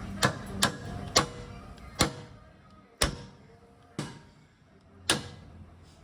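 Seven sharp knocks on metal, like hammer blows: three in quick succession, then about one a second, each with a short ringing tail.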